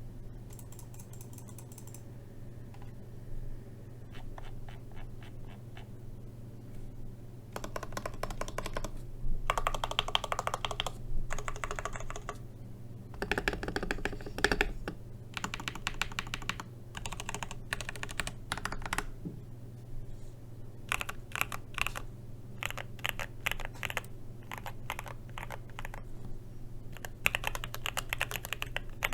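Typing on an LK67 (TM680) mechanical keyboard with Gateron Phantom Red linear switches, the case damped with foam and tape: runs of rapid keystrokes in bursts with short pauses between them, sparse at first and busier from about eight seconds in.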